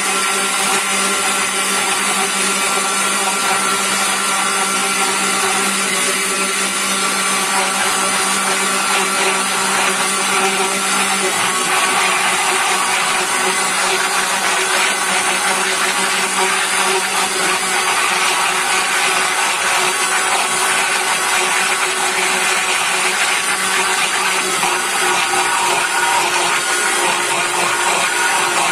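Countertop blender running steadily at low speed, whirring as it mixes a liquid cake batter of cola and eggs while pieces of softened butter are spooned in.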